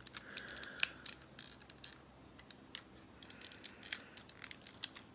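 Faint scattered clicks and snaps of plastic parts on a Transformers Robots in Disguise Soundwave toy as it is handled and shifted into car mode.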